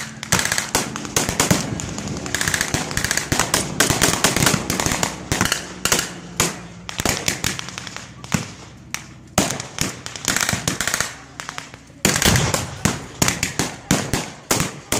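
Rifles firing blanks in a reenacted firefight: many sharp, irregular shots, often overlapping, with a brief lull about eleven seconds in before a loud shot.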